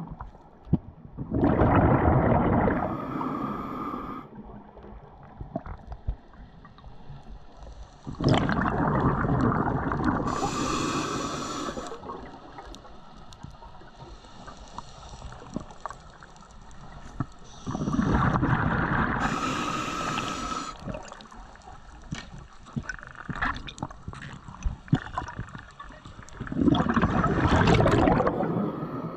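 A scuba diver's exhaled bubbles rushing out of the regulator, heard underwater: four long gurgling exhalations about every nine seconds, with faint crackling and clicks between breaths.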